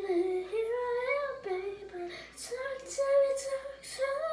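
A young child singing a tune in held notes that slide up and down in pitch, with a short break about two seconds in.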